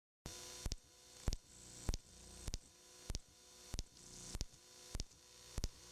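Playback noise from a damaged VHS tape: a steady hum and hiss broken by sharp clicks about every 0.6 s, the noise swelling slowly between clicks. It starts suddenly just after a moment of silence.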